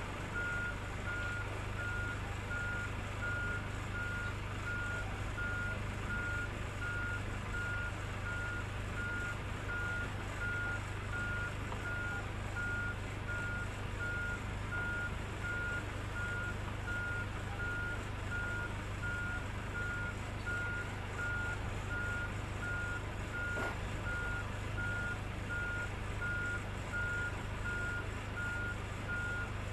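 Warning beeper on a hydraulic yacht-transport frame sounding one high beep over and over, a little faster than once a second, over the steady low hum of the transport machinery while it moves.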